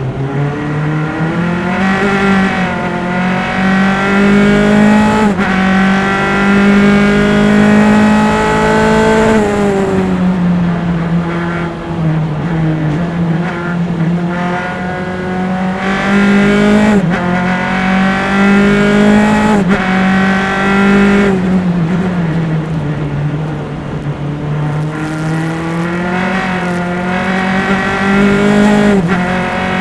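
Single-seater race car engine, close-miked, pulling hard through the gears: its pitch climbs and drops sharply at each upshift. The pitch falls away twice as the car slows for corners, then climbs again.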